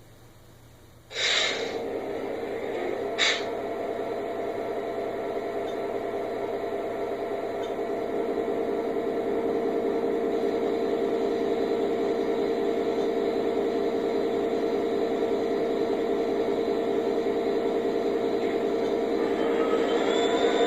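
Sound system of an O-scale model SD70-series diesel locomotive playing its diesel engine sound. A short rush of noise about a second in as the engine sound comes on and a brief second one soon after, then a steady engine drone that steps up in loudness about eight seconds in and again near the end as the throttle is notched up.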